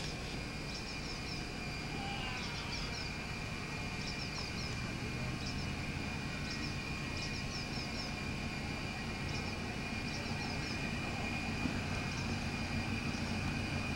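Steady low outdoor rumble under a faint constant high whine, with small clusters of short high chirps now and then.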